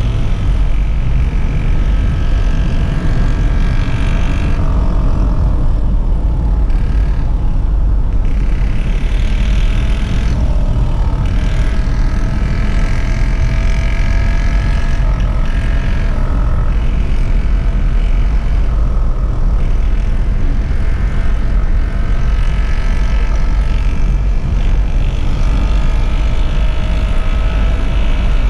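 Steady road and engine noise of a moving car heard from inside the cabin: a deep continuous rumble, with faint engine tones drifting slowly up and down.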